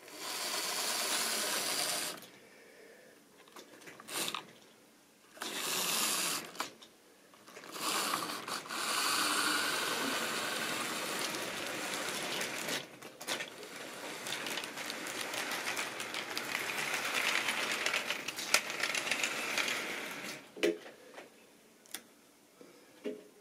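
Model railway train running on sectional track: the locomotive's small electric motor whirs and the wheels clatter over rail joints and points as it passes close. The sound comes and goes in several surges, then ends in a few sharp clicks as the last wheels cross the joints.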